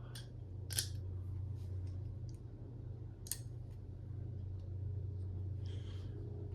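Two Corvus balisong butterfly knives swung side by side, giving scattered sharp metallic clicks, the two loudest a little under a second in and just past three seconds, over a steady low hum.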